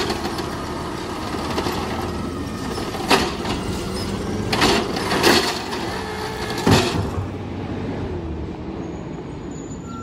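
Automated side-loader garbage truck's hydraulic arm lifting and emptying a trash cart, the truck's engine and hydraulics running throughout. Four loud clanks come between about three and seven seconds in as the cart is shaken out and lowered, then the noise eases off.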